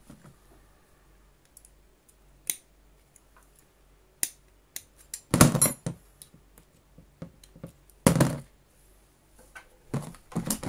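Metal hand tools and a vacuum cleaner's wheel axle being handled on a plastic tub lid: scattered sharp clicks and taps, with two louder clattering knocks about five and a half and eight seconds in, and a quick run of clicks near the end.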